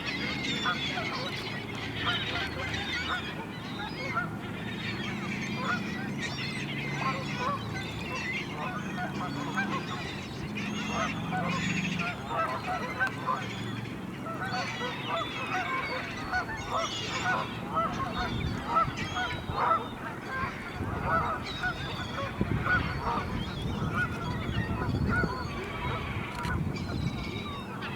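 A large flock of waterbirds calling all at once: a dense chorus of many overlapping short calls with no break.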